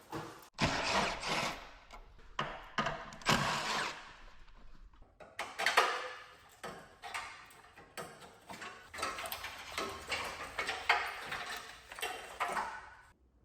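Irregular knocks, clatter and scraping with no steady tone, stopping abruptly near the end.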